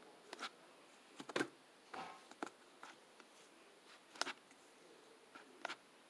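Scattered faint clicks and soft crackles from something being handled close by, irregular and a second or so apart. The sharpest come about a second and a half in and just past four seconds.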